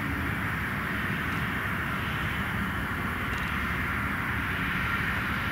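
Pilatus PC-24's twin Williams FJ44 turbofan engines running steadily as the jet rolls along the runway: a low rumble under a steady rushing hiss, with a faint thin tone coming in near the end.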